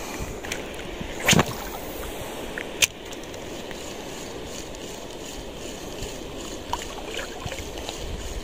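An ultralight spinning rod swishes through a cast about a second in, followed by a sharp click a moment later. After that there is steady wind and water noise while the lure is reeled back in.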